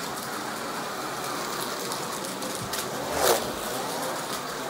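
Slot cars' small electric motors whirring steadily as they lap a Carrera Digital plastic track, with one short louder burst about three seconds in.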